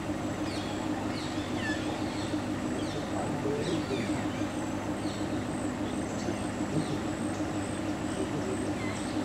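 Forest birds calling in short, scattered chirps over a steady low hum.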